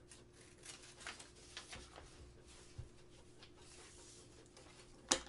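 Faint snips of scissors and rustling of paper as a paper rectangle is cut out, with one sharp click near the end.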